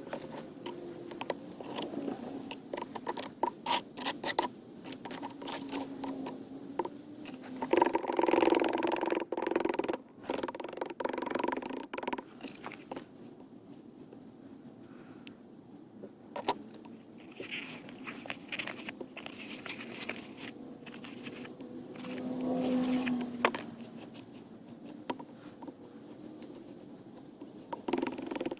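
Irregular scraping, clicking and knocking of a hand tool working wet high-temperature cement in a container, with two louder spells of scraping.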